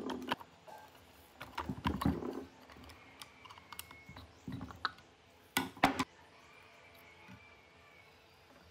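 Steel rods levering a rusted, seized blower impeller out of its housing: irregular clusters of metal clicks, knocks and scrapes. The loudest is a sharp double knock a little past the middle, with a faint thin squeak now and then between the clicks.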